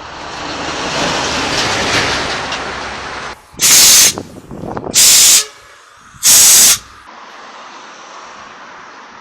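A rushing noise swells and fades over the first three seconds, then three loud, short hisses of compressed air, each about half a second long and roughly a second apart.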